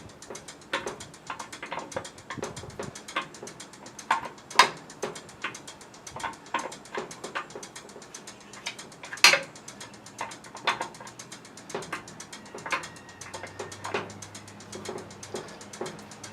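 Irregular sharp clicks and small knocks of tools and hard plastic parts being worked by hand as a pressure washer's inlet filter is pried out, with two louder clicks about a third and halfway through.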